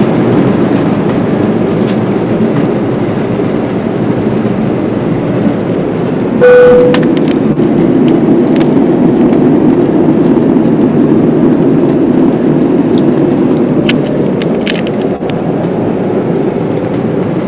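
Jet airliner engines and airflow heard from inside the passenger cabin at takeoff power during the climb-out, a loud, steady rushing drone. A brief single tone sounds about six and a half seconds in.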